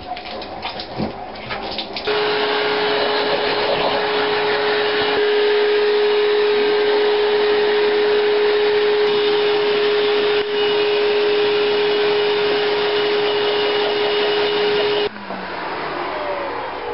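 An electric motor appliance switches on about two seconds in and runs loudly and steadily with a strong hum, then cuts off near the end and winds down with falling pitch.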